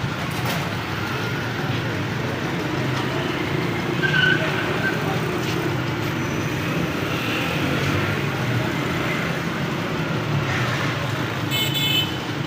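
Street traffic ambience: engines running steadily, with short horn toots about four seconds in and near the end.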